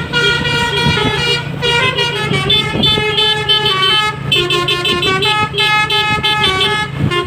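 Basuri multi-tone horn, the melodic telolet horn fitted to Indonesian buses and trucks, playing a tune of held and short notes that step between pitches, over a steady low hum.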